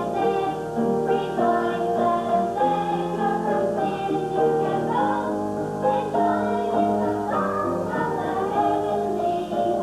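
Live music in a church: a melody of held notes with singing voices and instrumental accompaniment.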